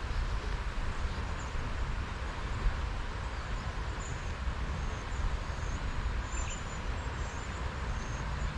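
Wind buffeting the microphone in a fluctuating low rumble over a steady outdoor hiss, with faint, short high chirps scattered through the second half.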